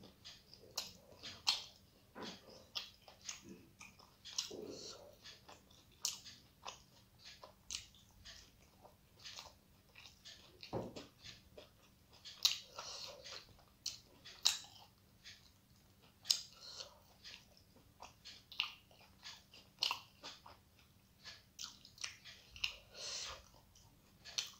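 Close-up eating sounds of someone eating with her fingers: chewing and wet lip-smacking in many short, irregular clicks.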